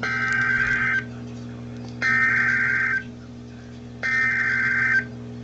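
NOAA Weather Radio SAME header for a severe thunderstorm warning: three one-second bursts of harsh, buzzing digital data tone, each about a second apart. The bursts mark the start of an Emergency Alert System message.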